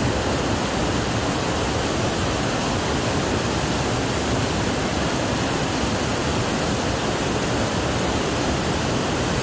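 Small mountain stream rushing over rocks and little cascades: a steady rush of white water.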